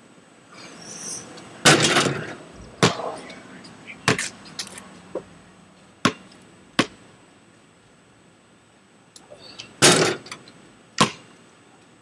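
Basketball bouncing on a concrete driveway: single sharp bounces spaced a second or more apart, with two louder, longer noises among them.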